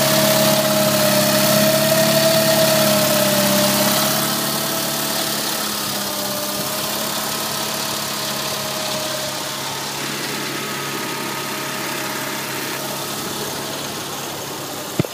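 Onan 18 hp opposed-twin engine of a Snapper 1855A garden tractor idling steadily, a little louder for the first few seconds. A single sharp click just before the end.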